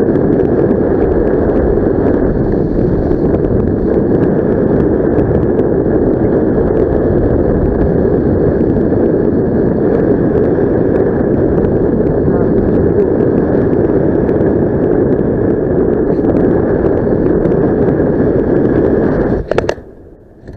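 Steady rush of wind buffeting the microphone as the paraglider flies, dropping away abruptly about a second before the end.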